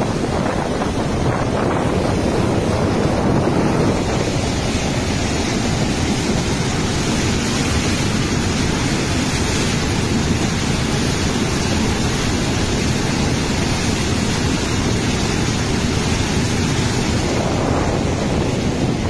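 Water rushing loudly and steadily through a dam's crest-gate opening where the gate's chain link has broken, letting water out uncontrolled. The hiss of the torrent grows stronger from about four seconds in and eases off near the end.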